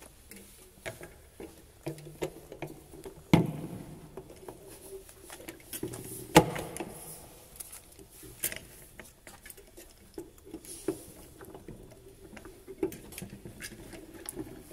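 MiG-23 fuel filter's metal parts handled on a wooden table as its cover and clamp bolt are fitted: scattered light clicks and clinks, with two louder knocks about three and six seconds in.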